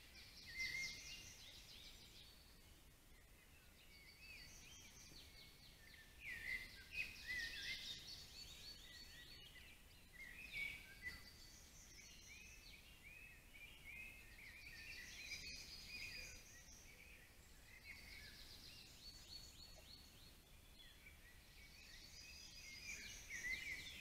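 Faint songbirds singing, with short trilled, chirping phrases coming in bouts every few seconds.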